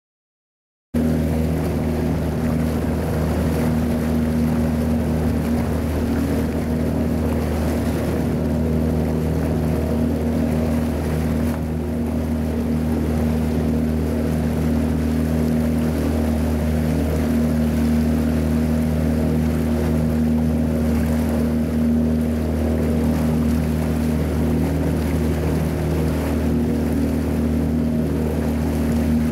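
Boat motor running at a steady speed: a constant low drone that starts about a second in and holds unchanged, with a steady hiss over it.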